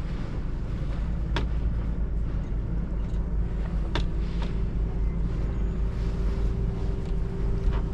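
Motorboat engine running steadily at low speed, a low even rumble, with a couple of faint clicks.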